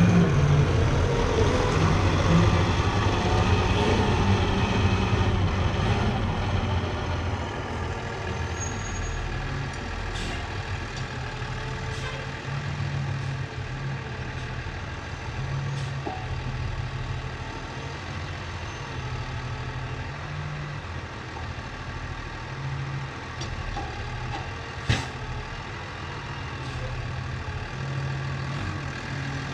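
Engine of a hay bale squeeze working at a bale load, running steadily. It is louder for the first six seconds or so, then eases to a lower level, with a few sharp clicks, the loudest about 25 seconds in.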